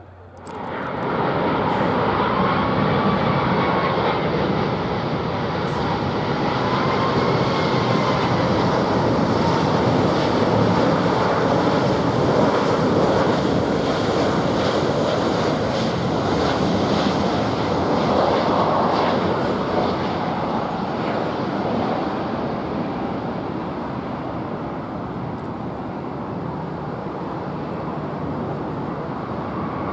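Jet engines of a Boeing 777 airliner on final approach and landing: a loud, steady rush with a whine that wavers up and down in pitch. It starts abruptly about half a second in and eases somewhat over the last several seconds as the jet comes down onto the runway.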